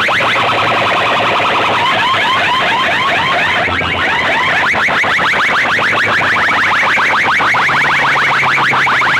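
Electronic alarm-style siren effect blasted through a large DJ box-speaker rig: a fast, harsh run of rising chirps, several a second, at full volume.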